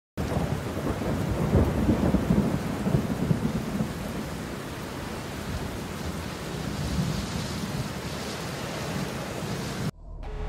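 Heavy rain falling steadily, with a low rumble of thunder about one to four seconds in. It cuts off suddenly near the end.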